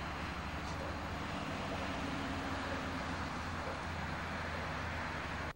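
Steady vehicle and traffic noise: an even rushing hiss over a low hum, cutting off abruptly near the end.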